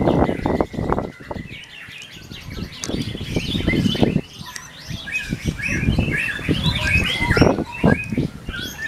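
Caged songbird singing in quick chirps and warbled phrases, sparse at first and busier in the second half, over a low uneven rumble of background noise.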